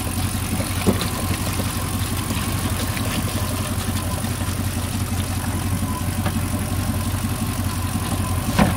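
MasterCraft MCX 350 V8 inboard engine idling steadily out of the water while it draws antifreeze from buckets through its cooling system for winterizing. Two short knocks sound over it, about a second in and near the end.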